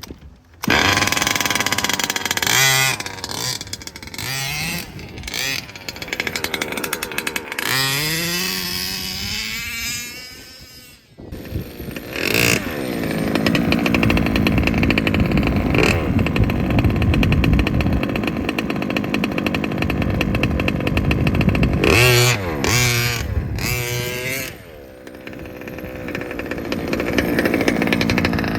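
Losi DBXL 2.0 1/5-scale buggy's two-stroke gas engine, breathing through an Olimat aftermarket exhaust pipe, revving up and down repeatedly. It climbs in pitch and holds high revs through a long middle stretch, then drops briefly and builds again near the end.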